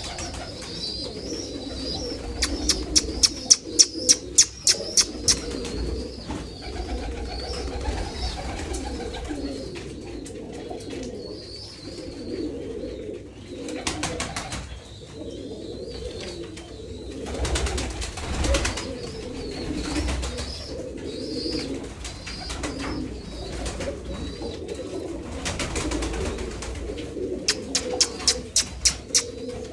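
Domestic pigeons in a loft cooing, a continuous murmur of many overlapping coos. Two runs of sharp, rapid clicks, about three a second, come in about two seconds in and again near the end.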